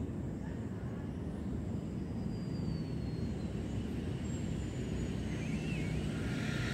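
Steady low outdoor rumble, with a few faint, high, gliding chirps in the middle.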